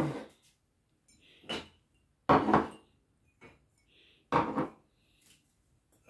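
Dishes clinking and knocking as a dishwasher is unloaded: ceramic mugs and bowls bump the wire rack and are set down, a few separate knocks, the loudest two about two seconds apart.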